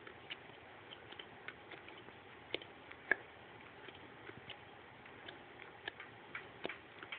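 Faint, irregular clicks and taps of a Weimaraner's claws on the plastic lid of a storage tote as the dog shifts its feet, with one louder click about three seconds in.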